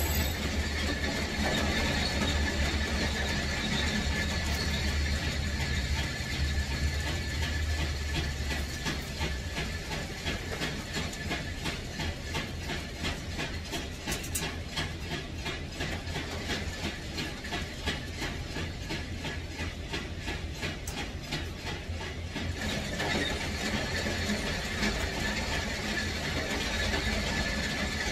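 Steady machine running sound: a low hum with a thin high whine over it. A sharp click comes right at the start, and a regular ticking of about two to three beats a second runs through the middle stretch.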